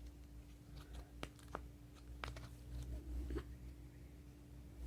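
A few faint, scattered clicks and taps of small plastic toys being handled, over a faint steady hum.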